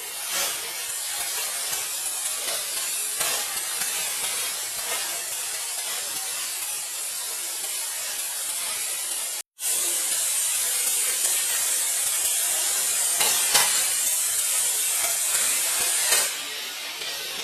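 Dry upland rice stalks rustling and swishing as they are harvested by hand, over a steady high hiss. A brief dropout comes about halfway, and the hiss drops off sharply near the end.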